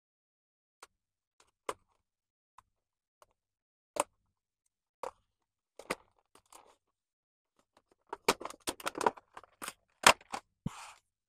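Action figure box being opened and its packaging handled. There are scattered single clicks and taps, then a busy run of crackling and clicking over the last three seconds, the loudest click about ten seconds in.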